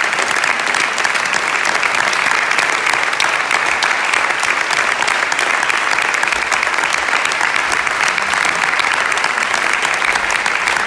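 Audience applauding with steady, dense clapping that does not let up.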